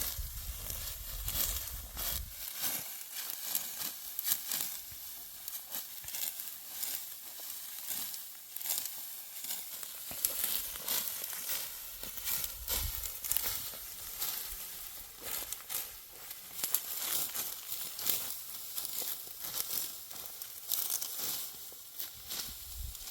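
Dry wheat stalks being reaped by hand with a sickle: a continuous dense crackling, rustling and tearing of brittle straw, with many irregular small snaps.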